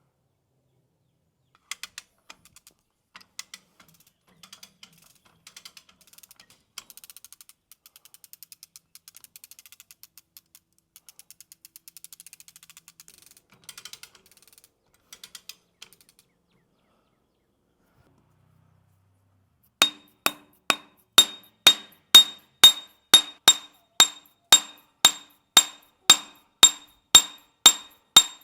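Hammer blows on steel, a steady run of ringing metallic strikes about two a second starting about two-thirds of the way in, driving the hydraulic cylinder's rod further in. Before them, faint irregular clicking and ticking of work on the metal parts.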